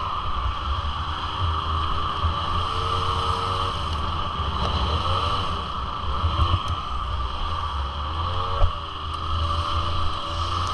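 Suzuki LT80 quad's small two-stroke single-cylinder engine running under way, its pitch rising and falling several times as the throttle is worked, over a heavy low rumble.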